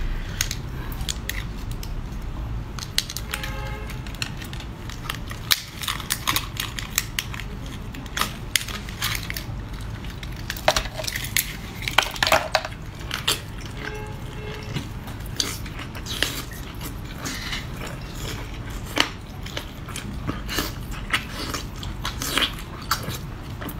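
Close-up eating sounds of a person biting and chewing spicy, sauce-coated seafood, with many short wet mouth clicks and smacks.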